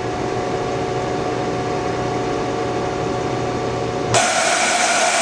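Spindle of a Hardinge VMC-600 II vertical machining center running steadily at about 6,500 RPM, a hum with several steady whining tones. About four seconds in the hum drops out and a sudden loud hiss takes over.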